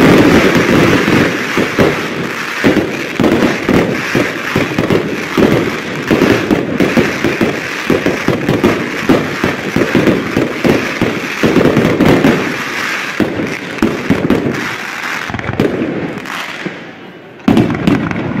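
Aerial fireworks display: a dense barrage of shell bursts and crackling stars, many bangs and pops a second. The barrage thins out near the end, then a fresh loud burst comes in.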